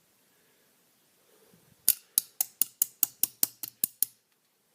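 A lock body being rapped against a hard surface to shake out a stuck pin spring: about a dozen quick, sharp metallic knocks, about five a second, starting just under two seconds in and stopping about a second before the end.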